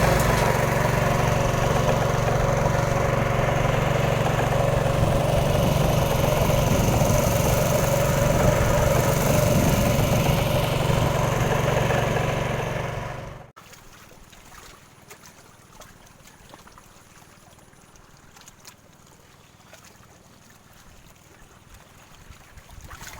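A small engine running steadily, which fades out abruptly about thirteen seconds in. A faint trickle of water and a few light clicks remain.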